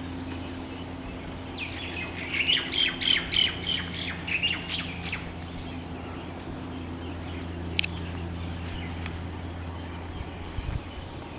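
Tropical birds calling as they settle to roost at dusk. About two seconds in comes a quick run of roughly eight loud, harsh calls lasting about three seconds, followed by scattered single sharp chirps.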